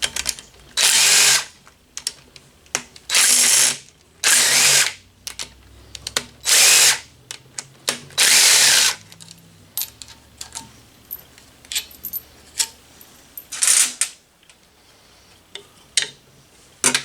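Handheld power tool run in six short bursts of under a second each, spinning bolts out of a Polaris Ranger 900 XP engine during teardown, with small metallic clicks between the bursts.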